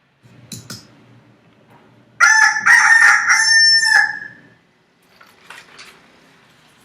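Rooster crowing once: a loud cock-a-doodle-doo lasting about two seconds.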